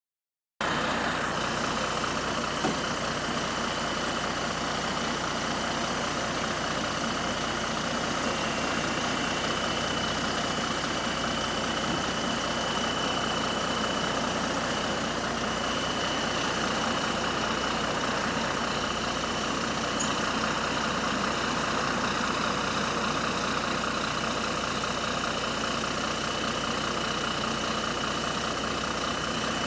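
Bus engine running steadily with a steady high-pitched tone over it, the sound of an exhaust leak.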